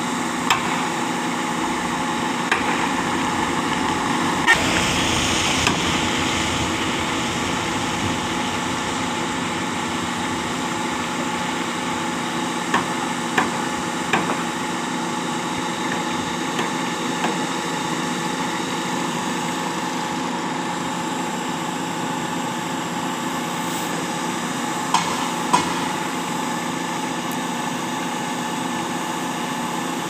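SANY truck-mounted concrete boom pump's diesel engine running steadily to drive the pump, with a brief swell of hiss about five seconds in. Sharp knocks come now and then: a few in the first six seconds, three close together about halfway through, and a pair near the end.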